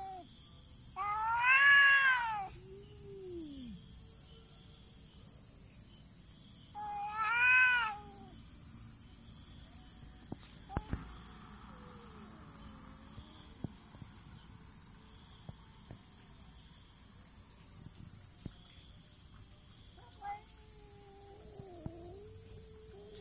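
Cats caterwauling in a face-off. A loud yowl rises and falls about a second in, and another comes near eight seconds. Low, drawn-out wavering growl-moans follow the first yowl, come again midway, and return near the end. Crickets chirr steadily behind them.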